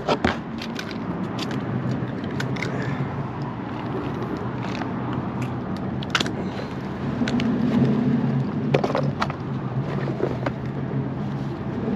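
Road traffic crossing the bridge overhead: a steady low hum that swells for a few seconds from about seven seconds in as a vehicle passes. Scattered sharp clicks and knocks close by, from gear being handled on the rock.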